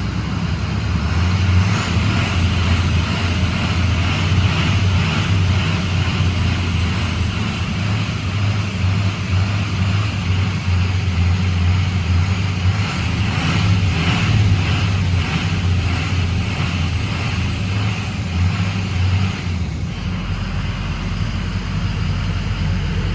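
Freshly rebuilt Ford Power Stroke V8 diesel running, held at raised revs for most of the time to blow it out, then dropping back toward idle near the end.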